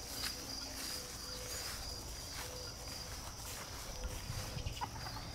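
Faint outdoor ambience: insects chirping steadily in a high, even tone, with soft footsteps through grass.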